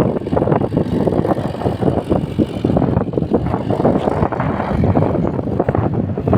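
Mahindra Yuvo 475 diesel tractor running while it ploughs the field, a steady dense, irregular clatter.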